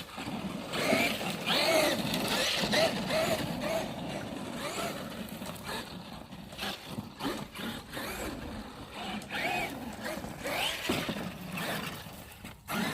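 Traxxas Maxx RC monster truck's brushless electric motor whining as it is driven, the pitch rising and falling again and again as the throttle is worked.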